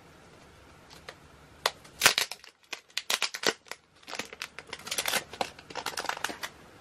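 Photocard packaging being handled and opened by hand: crinkling and crackling that begins with a few single clicks, then comes in two dense runs with a short pause in the middle.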